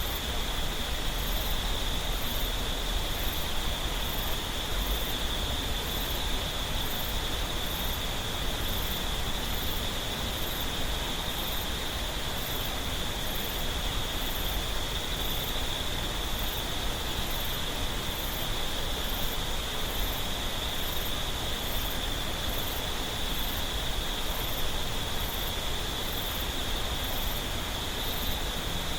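Mountain stream flowing, a steady rush of water over rocks. Insects sing over it: a continuous high drone and a faint, very high chirp repeating evenly about one and a half times a second.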